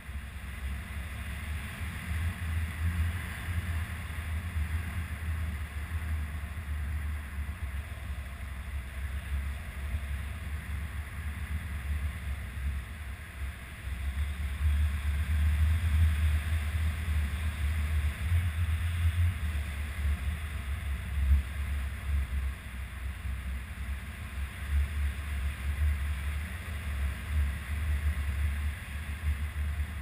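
Airflow buffeting an action camera's microphone in flight under a tandem paraglider: a gusty low rumble with a thin hiss, louder from about halfway through.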